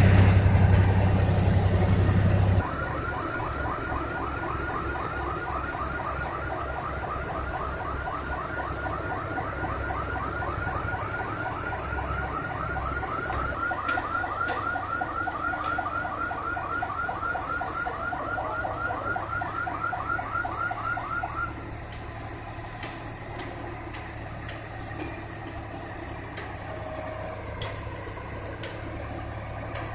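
A heavy engine runs loudly and cuts off about two and a half seconds in. Then an electronic warning alarm chirps rapidly and evenly, several chirps a second, for about twenty seconds before stopping, over a low steady engine hum.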